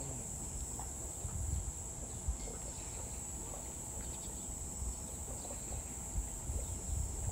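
Steady, high-pitched insect chorus of trilling crickets, with an uneven low rumble underneath.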